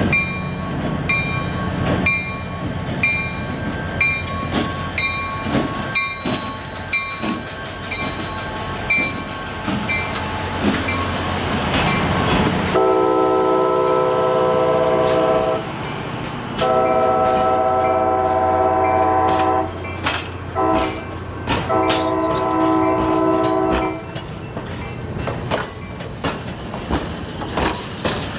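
Union Pacific 844 diesel locomotive's bell ringing about once a second, then its horn sounding three long chord blasts about halfway through over the engine's steady rumble. Near the end the passenger cars' wheels click over the rail joints.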